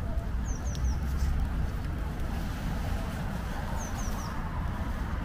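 A small bird giving three quick high descending chirps, twice, about three seconds apart, over a steady low outdoor rumble.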